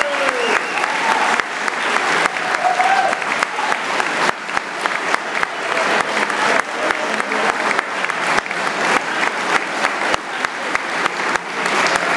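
Audience applauding. From about four seconds in, the claps fall into a steady rhythm of about three a second, clapping in unison.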